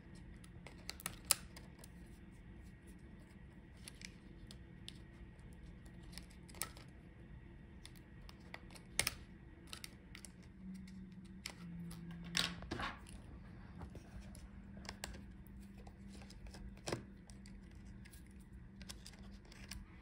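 Faint, scattered clicks and light scrapes of ribbon-cable connector latches being flipped open and flex cables pulled from a laptop motherboard with a pry tool and fingertips. The sharpest clicks come about a second in and again near the middle.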